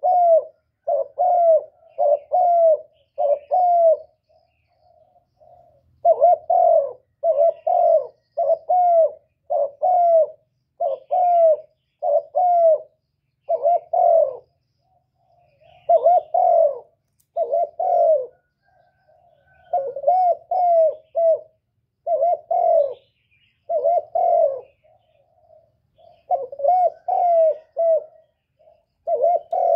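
Spotted dove cooing over and over: runs of short, low coo notes at about two a second, broken by brief pauses.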